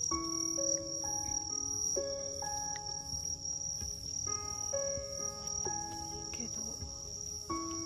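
Crickets trilling in one steady high-pitched band, under soft background music of held notes in a slow, repeating phrase.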